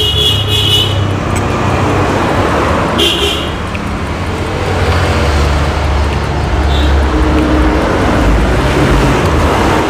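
Road traffic: a motor vehicle's engine running close by with a heavy low rumble that grows louder from about halfway through, with two short high-pitched tones, one ending about a second in and one around three seconds in.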